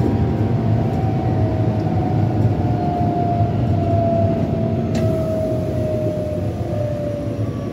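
Keihan 7000 series EMU running, heard from inside the car: the low rumble of wheels on rail under the whine of its Toyo IGBT-VVVF inverter and traction motors, the whine falling slowly in pitch as the train slows for the next station. A brief click about five seconds in.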